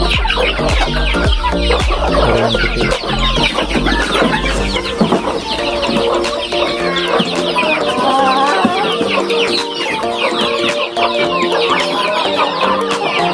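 Chickens clucking and calling in a coop, over background music whose bass line drops out about five seconds in.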